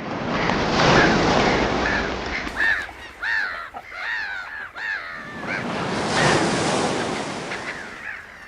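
A run of about eight short, harsh bird calls, each rising and falling in pitch, over a rushing noise that swells and ebbs twice, like surf or wind.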